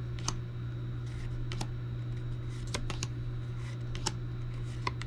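Lorcana trading cards being handled and flipped through one at a time: irregular light clicks and snaps of card stock, over a steady low hum.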